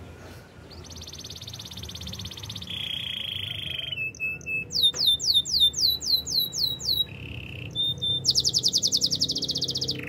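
Canary singing: fast high trills alternate with lower, slower trills, and in the middle comes a run of about eight downward-sweeping whistled notes, roughly four a second. The song ends in a very fast high trill.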